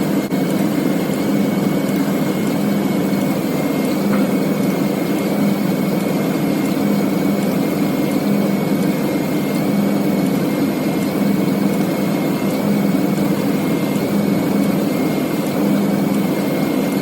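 Ford F-250 pickup engine idling steadily with the A/C running, heard under the open hood during a refrigerant recharge, with a thin steady whine above the engine note.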